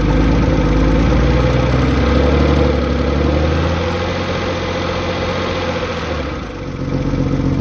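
Porsche 993's air-cooled flat-six engine idling steadily, with the ticking from the valve lifters known as lifter tick.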